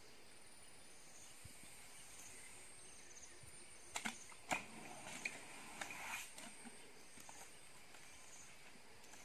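An elephant moving against a tree and stepping off, heard as a short run of crackles and rustles from about four to six and a half seconds in. Under it is a faint, steady, high insect hum.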